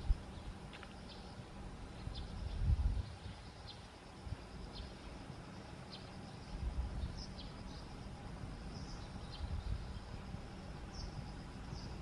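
Outdoor ambience with faint, short high chirps scattered throughout and a few brief low rumbles, the loudest about two and a half seconds in.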